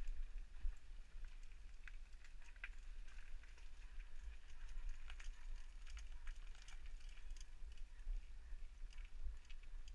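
Mountain bike being ridden over a rough path, heard from a helmet camera: a steady low rumble of wind on the microphone, with many small scattered clicks and rattles from the bike and tyres.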